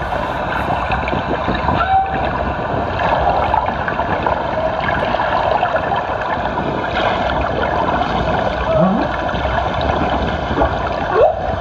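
Humpback whales' calls from an underwater recording, played through a small loudspeaker: a few short rising whoops, the clearest in the second half, over a steady hiss of sea noise. The whales are feeding on capelin.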